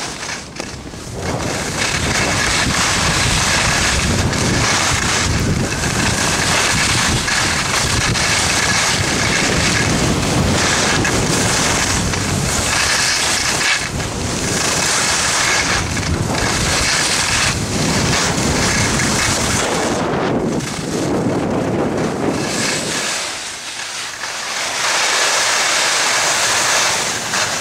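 Wind buffeting the microphone of a camera carried down a ski slope, with skis hissing and scraping over the snow in surges. Near the end the low wind rumble drops away and only the higher hiss of the skis remains.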